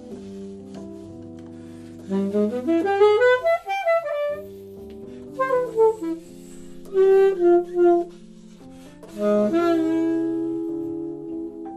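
Saxophone improvising jazz phrases in a duet. Quick runs around 2, 5.5 and 9 s answer one another over lower held notes.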